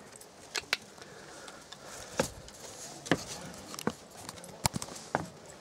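Husky's claws tapping on wooden deck boards as it walks, a string of short, sharp, irregular taps.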